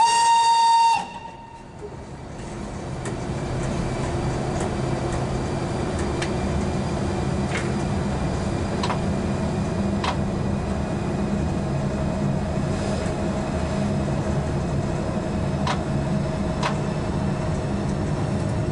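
Class 140 (E40) electric locomotive: a one-second horn blast, then the engine's electric hum building up over a couple of seconds and holding steady as it pulls the freight train, with a few scattered clicks.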